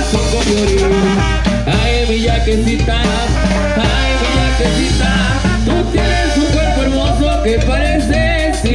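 Mexican banda brass band playing live and loud, with trombones, tuba and drums.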